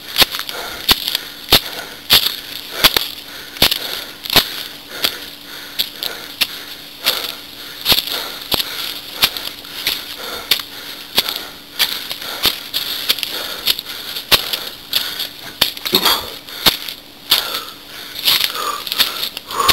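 Footsteps crunching on dry leaf litter and stones, about three steps every two seconds.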